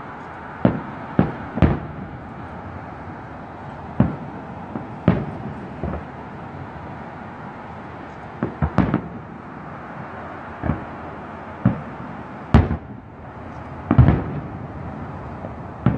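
Aerial firework shells bursting in the sky: about a dozen sharp bangs at irregular intervals, some in quick succession, over a steady background hiss.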